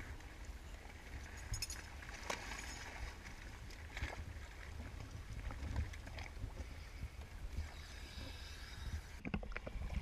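Slushy water lapping and splashing against a waterproof action camera at the edge of a hole cut in ice, with a steady low rumble on the microphone and scattered small knocks. A louder splash comes near the end, as the camera dips to the water.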